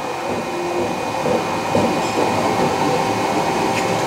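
Raise3D N1 3D printer printing at its maximum speed: its stepper motors whine and buzz in a mix of steady and shifting tones as the print head darts back and forth over the part.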